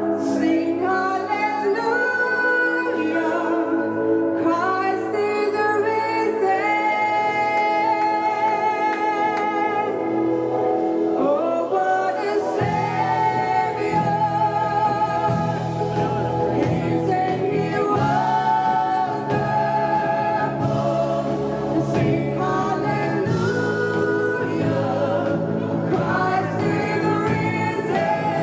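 Live contemporary worship band playing, with a female lead singer and backing voices singing a slow worship song. The bass end of the band comes in fuller about halfway through.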